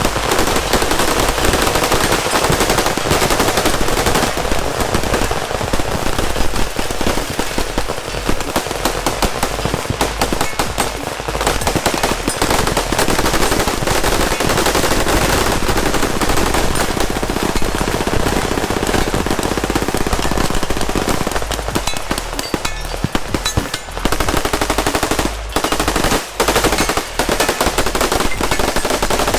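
Many guns firing at once along a firing line: a dense, unbroken barrage of rapid gunfire, dipping briefly a couple of times near the end.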